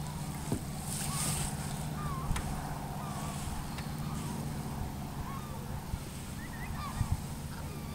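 Waterfowl calling: scattered short, goose-like honking calls over a steady low hum, with a few brief knocks.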